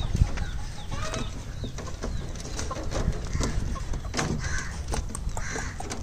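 Chickens clucking, over a low rumble with scattered clicks and knocks.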